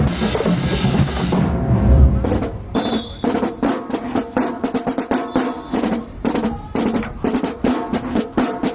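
Marching band drumline playing a cadence on snare and bass drums: heavy low hits for the first two seconds, then a quick, even snare pattern of sharp strikes.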